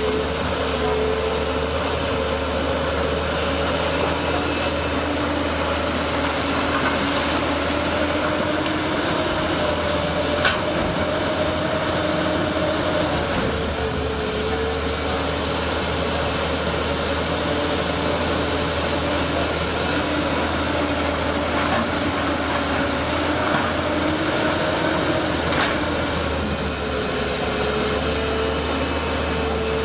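Excavator diesel engine running steadily with a low rumble, its pitch rising and dipping slightly as the load changes. A single sharp knock comes about ten seconds in.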